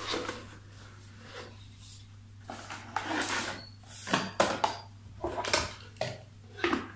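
Cardboard packaging and the plastic parts of an ultrasonic aroma diffuser being handled while it is unpacked: a string of short rustles, taps and knocks that grows busier from about halfway through.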